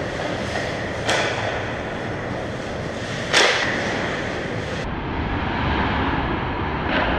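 Ice hockey play in an arena: a steady wash of skates scraping the ice, broken by sharp clacks of stick and puck about a second in and about three and a half seconds in, and a fainter one near the end.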